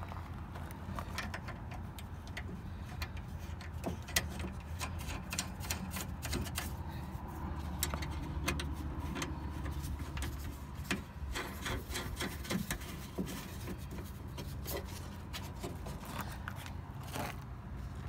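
Small metallic clicks and taps scattered throughout, as nuts are threaded by hand onto the studs of a Chevy Silverado rear door latch bracket. A low steady rumble runs underneath.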